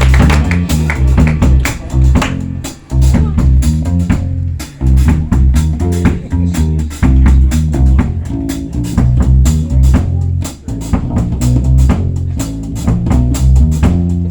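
Blues bass solo: the bass plays a moving line of low notes while the drum kit keeps a steady beat underneath.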